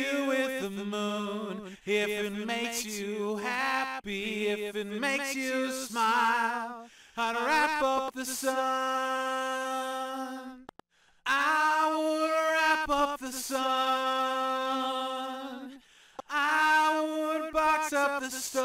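Lead vocal of a song heard on its own, one singer holding long notes with vibrato and pausing briefly twice. A delay effect is on the vocal, with its delay time being changed to fatten up the voice.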